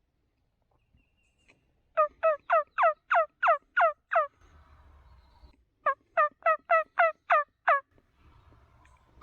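Crow locator call blown in two quick series of eight loud caws, each caw falling sharply in pitch, about three or four a second. It is used to make a gobbler shock-gobble and give away where he is. A fainter, rougher sound follows each series.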